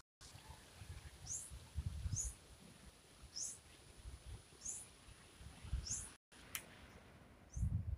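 Wind gusting on the microphone in low rumbles, while a bird repeats a short, high chirp that falls in pitch, about once a second.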